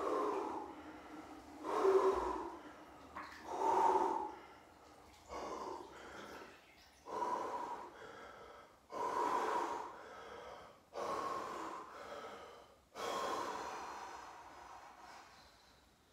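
A man taking heavy, deep breaths while sitting in an ice bath: about eight loud breaths roughly two seconds apart, each starting sharply and trailing off, getting weaker toward the end.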